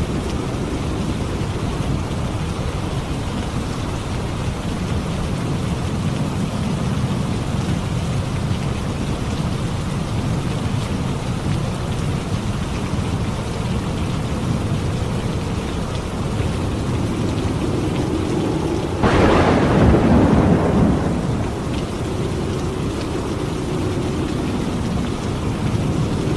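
Steady heavy rain with a low rumble underneath, and a clap of thunder about three quarters of the way through that breaks sharply and rolls off over a couple of seconds.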